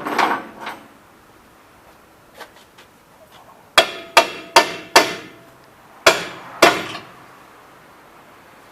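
Hammer striking steel suspension parts during front-suspension removal: a quick run of four blows, then two more, each with a short metallic ring. Some lighter clatter comes first.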